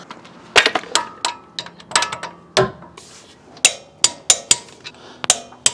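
Torque wrench being worked on a nut to reach 75 foot-pounds. It gives sharp metallic ratchet clicks in irregular clusters, with short clinks of steel between them.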